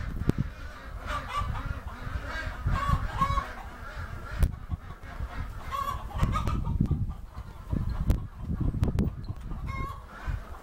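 A flock of chickens and ducks calling: repeated clucks and honking quacks, over irregular low rumbles.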